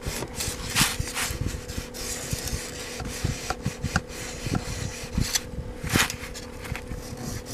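Steel scissor blade rubbed back and forth flat on a wet 1000-grit sharpening stone: a scratchy grinding in uneven strokes, a few louder than the rest. Under it runs the steady hum of a small muffin fan.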